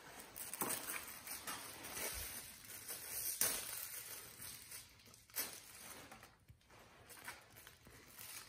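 Paper food wrapper being crinkled and torn in the hands: a run of rustling crackles, the loudest about three and a half seconds in.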